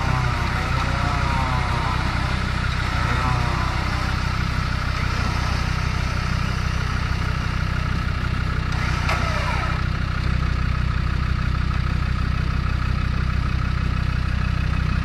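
Land Rover Defender's engine idling steadily while the vehicle sits nose-down in a washout, its line held ready for a recovery.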